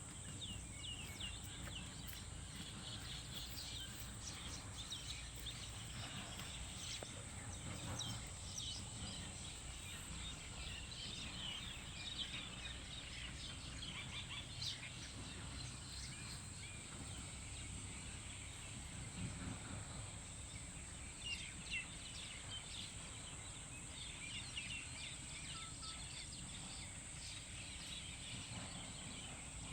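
Many small birds chirping and calling at once, short rapid notes overlapping throughout, over a steady high-pitched whine and a low background rumble.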